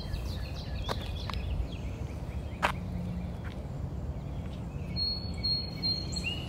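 Small birds chirping over a continuous low outdoor rumble, with a few sharp clicks. About five seconds in, a steady high thin note with quick repeated chirps comes in.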